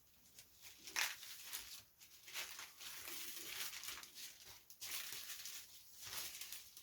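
Crinkling and rustling as a balsa tailplane is pulled up off the paper building plan and handled, in a few irregular bouts with sharper crackles about one, two and a half and five seconds in.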